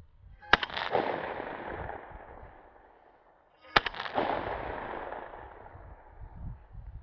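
Two shotgun shots about three seconds apart. Each is a sharp crack followed by a long rolling echo that fades over a couple of seconds.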